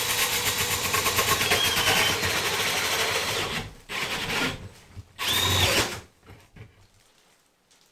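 Power drill driving a hole saw through a drywall ceiling: steady grinding for about three and a half seconds, then two short bursts as the drill is spun up and let wind down, and then it stops.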